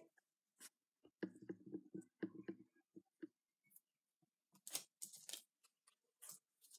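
Paper strips rustling and crinkling as they are handled and pressed down, with soft scattered taps. The brighter rustles come in the second half, when a sheet of paper is lifted.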